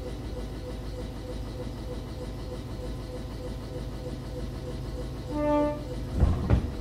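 Old-type KuMoHa 61 electric railcar running, heard from inside the car as a steady rumble. About five seconds in, the train's horn sounds one short blast of about half a second, followed by a few sharp knocks near the end.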